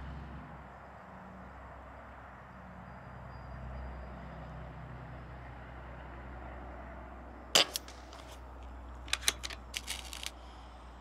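Crosman Prospect .22 PCP air rifle firing a single shot, a sharp crack about three-quarters of the way in. About a second and a half later come several quick metallic clicks, the bolt being worked to load the next pellet by hand.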